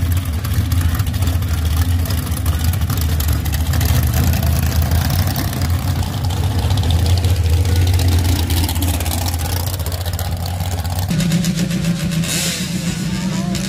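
A sand drag rail's engine running hard at the line and launching down the sand track. About 11 seconds in, the sound cuts to a different, higher-pitched engine idling: a motorcycle-engined drag trike at the start line.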